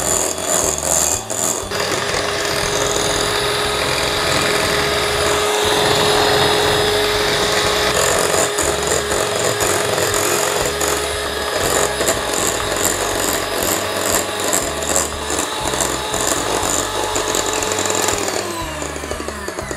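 Electric hand mixer running steadily, its beaters whipping cream cheese and cream in a glass bowl, with bursts of rapid clicking midway. Near the end the motor winds down in a falling pitch as it is switched off.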